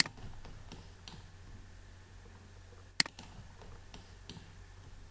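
Computer mouse button clicks: two sharp clicks about three seconds apart, with a few fainter ticks between them, over a low steady hum.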